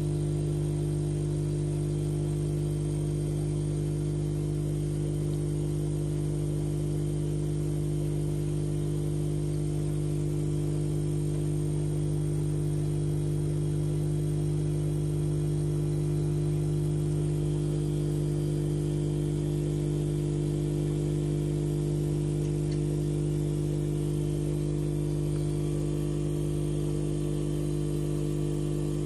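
Steady low hum of running fish-room aquarium equipment, unchanging in pitch and level.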